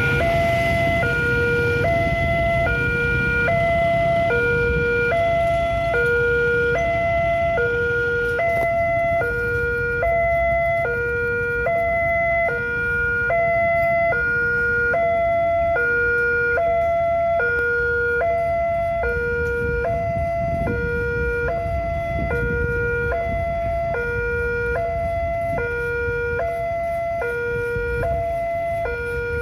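Indonesian railway level-crossing alarm (the 'Alarm Indonesia' type) sounding its electronic two-tone warning, a low and a higher tone alternating steadily, each held about three-quarters of a second; it signals that a train is approaching. Road traffic rumbles underneath.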